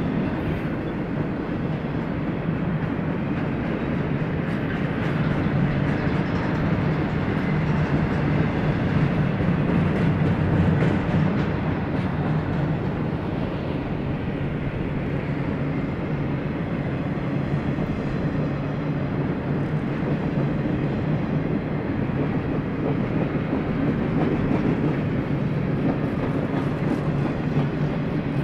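Empty well cars of a BNSF intermodal freight train rolling past, a steady rumble of steel wheels on rail.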